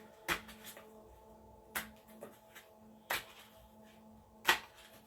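Tarot cards being shuffled by hand, four short slaps of the cards about a second and a half apart, over soft background music.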